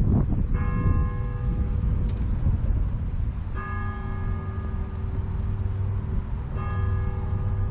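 Church bell tolling: three strokes about three seconds apart, each ringing on and fading. Underneath is a steady low rumble of wind on the microphone of a moving bike.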